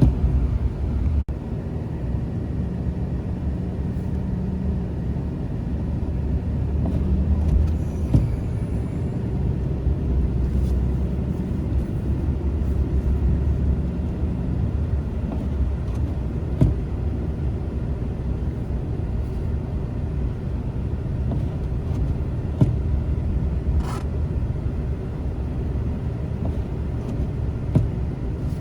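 Car on the move: a steady low rumble of engine and road noise, with a few brief knocks in the second half.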